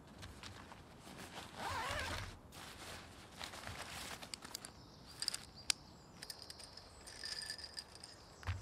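Zip on a tent stuff sack being pulled open, loudest about two seconds in, followed by the sack's fabric rustling and small clicks as hands rummage inside it.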